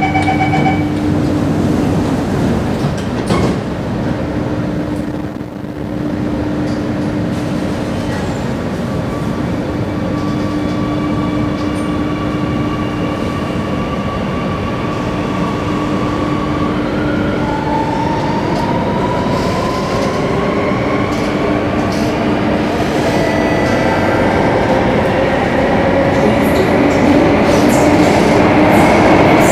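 The tail of the door-closing chime on a Singapore MRT Circle Line train, then the electric train pulling away and accelerating into the tunnel. Its traction motors give rising whines, and the running noise grows louder toward the end.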